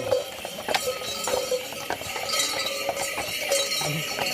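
Many small bells on a decorated horse's harness jingling continuously as it walks, with scattered hoof clops among them.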